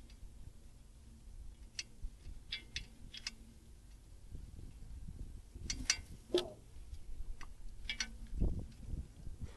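Faint, scattered clicks and taps, with a short squeak about six and a half seconds in and a dull low thump near the end.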